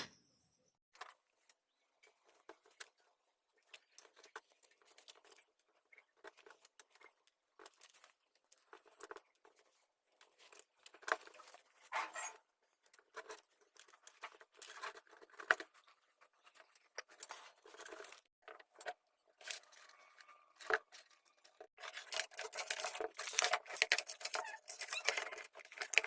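Handling noises of hands-on repair work on a mixer grinder: scattered clicks, light rattles and scraping rustles of parts being handled, coming thicker and louder over the last few seconds.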